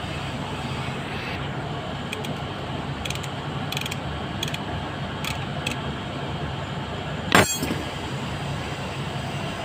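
Metal hand tools clicking and clinking against the motorcycle engine's magneto cover as it is being undone: a handful of light clicks, then one louder, rasping clank about seven seconds in, over a steady low background hum.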